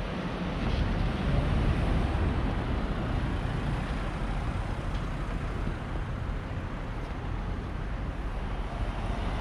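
Street traffic noise: a car driving slowly round a roundabout close by, over a steady background of town traffic.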